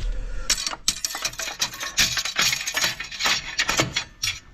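Steel pry bar clinking, scraping and rattling against the metal flywheel and clutch housing of a split tractor, a quick run of sharp metallic clinks that stops just before the end.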